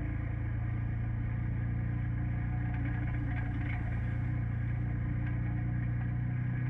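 Four-seater UTV's engine running at a steady, unchanging pitch, with a few light rattles near the middle.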